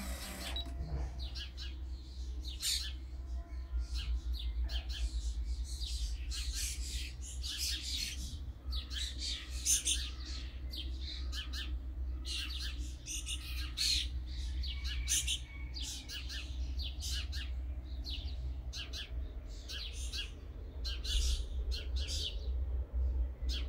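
Small birds chirping: many short, high calls throughout, over a steady low rumble.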